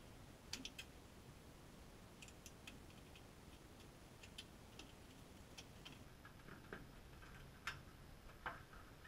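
Near silence with faint, scattered plastic clicks and small knocks as a BMW E46's airbox housing is unclipped and lifted out of the engine bay.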